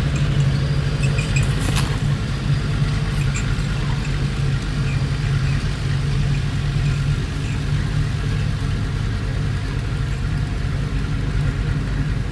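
Heavy diesel engine of earthmoving machinery running steadily at low revs, with a single sharp clank about two seconds in.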